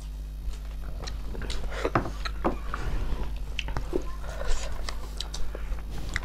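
Close-miked eating sounds of snail curry: chewing and biting, with a string of short, irregular clicks and smacks.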